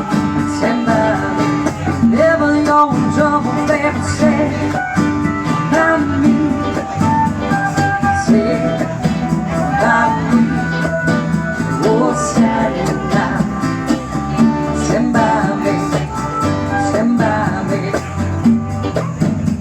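Live band music with guitar to the fore, played without lyrics.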